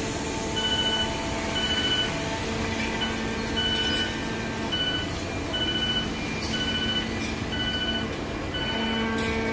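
A vehicle's reversing alarm beeping about once a second, each beep short and two-pitched, over the steady running of diesel machinery.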